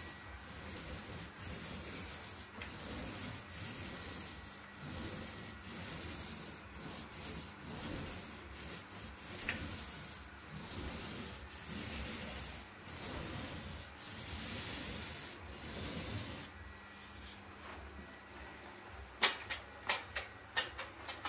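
Pole sander rubbing back dried joint compound on a drywall ceiling patch, in repeated strokes about one a second that stop a few seconds before the end. A few sharp clicks follow near the end.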